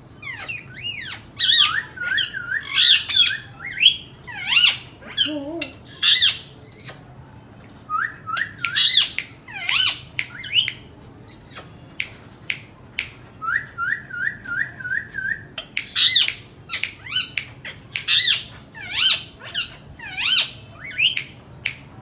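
Indian ringneck parrot calling over and over: short, harsh screeching calls, broken up by runs of quick rising chirps.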